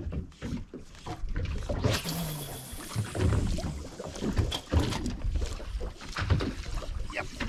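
Water lapping and slapping irregularly against the hull of a drifting boat, with a brief splashing wash about two seconds in.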